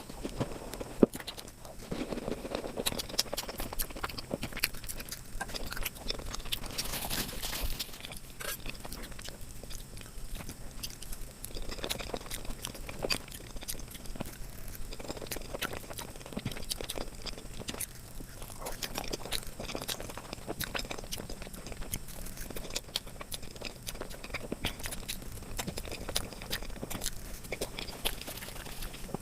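A person biting into and chewing sweets, with dense, irregular crunching and crackling throughout.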